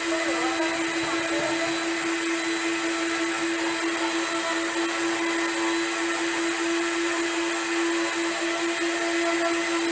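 A motor running steadily, with a constant hum and an even hiss that do not change.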